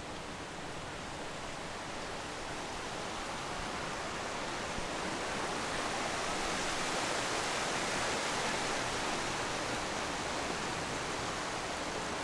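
Steady rushing of flowing river water, swelling a little toward the middle.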